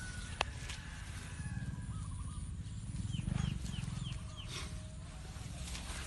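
Outdoor rural ambience with a low rumble of wind and handling noise on the microphone. A sharp click comes just under half a second in, and about three seconds in a bird gives a quick run of five short descending chirps.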